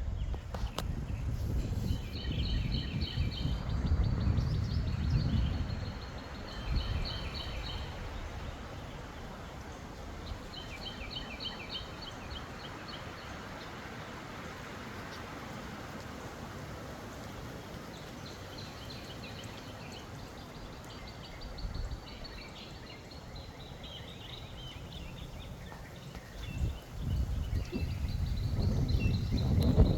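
A songbird singing repeated short, rapid chirping phrases every few seconds. Wind buffets the microphone with a low rumble at the start and again near the end.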